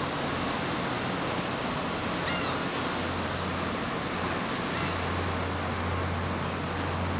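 Steady rushing riverside ambience of moving river water and distant city traffic, with a low hum that strengthens about halfway through. A few short high chirps come about two and five seconds in.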